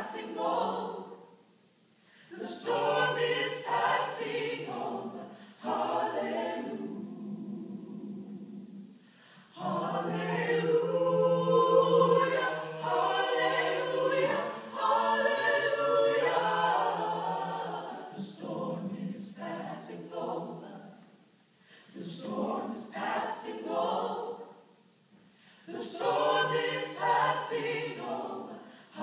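Mixed choir singing a cappella in sustained phrases of a few seconds each, separated by short breaks; the fullest, loudest passage comes in the middle.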